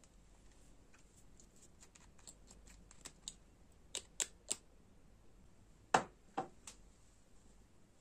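A run of small light clicks and taps, followed by a few sharper, louder clicks about four seconds in and again about six seconds in.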